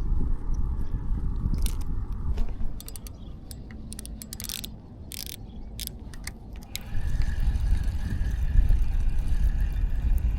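Low wind rumble on the microphone, dropping away after about two and a half seconds and returning near the end; in between, a run of sharp irregular clicks and rattles.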